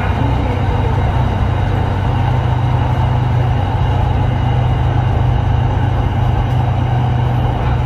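SRT Red Line electric commuter train running at steady speed, heard from inside the carriage: an even, continuous low rumble with rolling noise on top.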